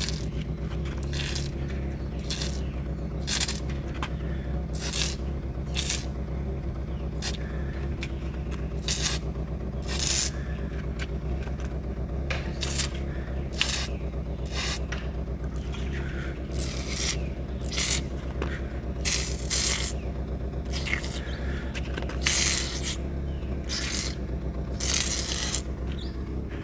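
Aerosol can of carnival foam spray squirted in short hissing bursts, about one a second, as letters are written on the ground. A steady low hum runs underneath.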